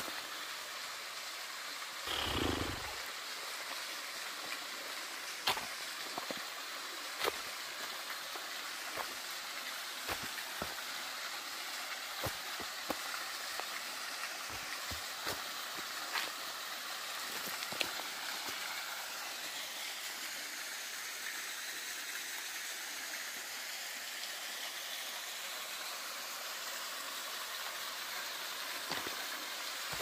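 Steady rushing hiss of a small waterfall and its stream, with scattered light clicks and taps over it.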